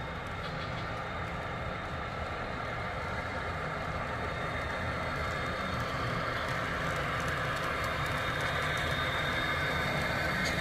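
Sound-equipped Atlas Santa Fe GE U28CG model diesel locomotives passing, their Soundtraxx Tsunami2 decoders playing diesel engine sound through Scale Sound Systems speakers, along with the train's wheels rolling on the track. The sound grows slowly louder as the locomotives come by.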